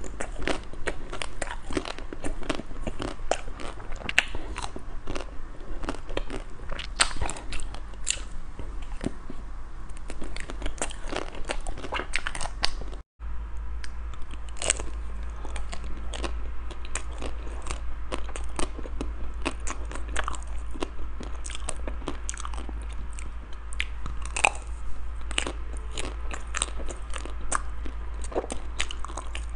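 Close-miked biting and chewing of frozen ice cream bars: irregular crisp crunches and small crackles as the frozen coating breaks, with the second bar chocolate-coated. The sound drops out briefly about halfway through, and a faint low hum runs under the later crunching.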